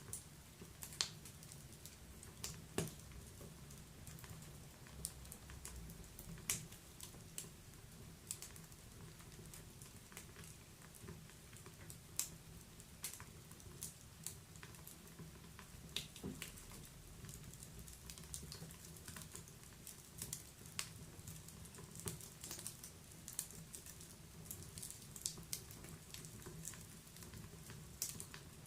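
Wood fire crackling in a fireplace: irregular sharp pops and snaps, a few every second, over a low steady rumble.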